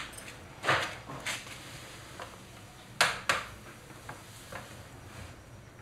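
Short rustling and scuffing noises of a person moving and sitting down on a bed, with louder scuffs about a second in and again around three seconds in, over a quiet room hush.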